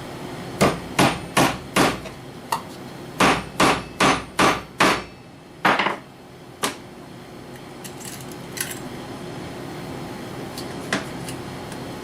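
Hammer driving tacks to fasten leather onto a wooden rifle rest. Two quick runs of blows, four and then five at about two or three a second, followed by a few lighter single taps.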